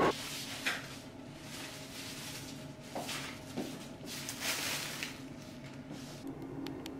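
Plastic carrier bag rustling in swells as it is carried and set down on a countertop, then a few light clicks near the end.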